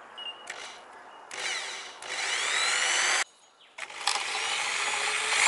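Electric drill boring small pilot holes through a boat hatch lid, in two runs. The first lasts about two seconds and cuts off abruptly; the second starts about half a second later, its whine shifting in pitch as the bit cuts.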